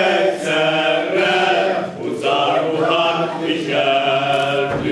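A group of men singing together, long held notes in short phrases.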